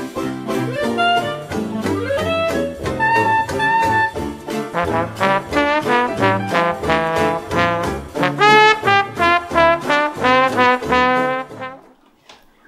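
Jazz instrumental intro music, with quick runs of notes, that stops about a second before the end.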